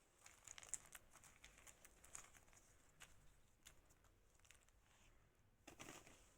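Faint handling noises: light clicks and soft rustling as small plastic toys and balloons are moved about, with a slightly louder rustle near the end.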